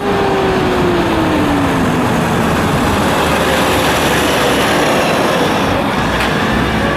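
Loud, steady vehicle noise, with a whine that slides down in pitch over the first three seconds.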